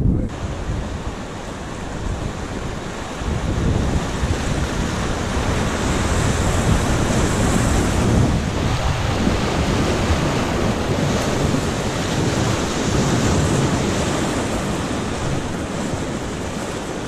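Whitewater rushing around the bow of an inflatable raft running a class III rapid on the Rio Grande, a steady rush that grows louder about four seconds in and eases a little near the end, with wind rumbling on the microphone.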